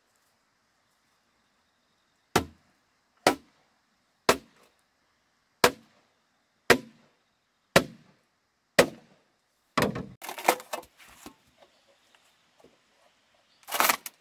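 Seven sharp chopping blows on bamboo, about one a second, followed by a brief rattle of smaller knocks and one louder, longer crash near the end.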